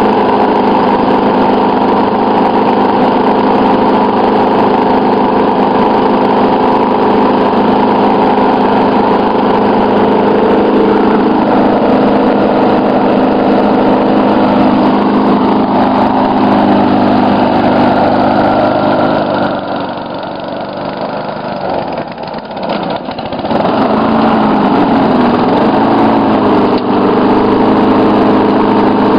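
Walk-behind lawn mower's small engine running steadily, left running to use up its fuel before winter storage. Its speed sags slightly a couple of times, then about twenty seconds in it drops sharply and falters for a few seconds before picking back up and steadying.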